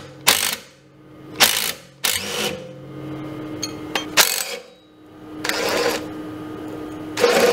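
Cordless impact driver with a 14 mm socket hammering in about six short bursts, loosening rusty leaf-spring shackle bolts on a golf cart.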